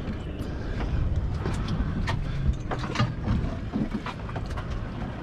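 Wind and water against a small boat's hull, a steady low rumble, with scattered light clicks and knocks.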